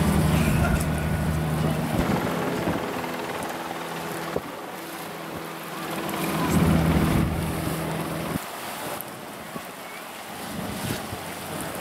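Motorboat engine running with a steady hum, loudest about a second in and again around seven seconds, then cutting off sharply at about eight and a half seconds. Wind buffets the microphone throughout.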